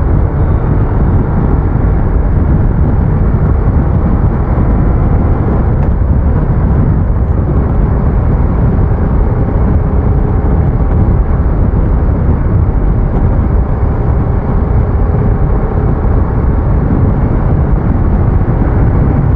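Bajaj Pulsar RS200 motorcycle being ridden at steady speed: its engine runs under a loud, even rush of wind noise.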